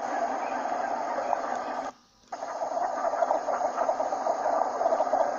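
A large flock of ducks calling at once, a dense, steady chatter of overlapping calls. It cuts out for a moment about two seconds in.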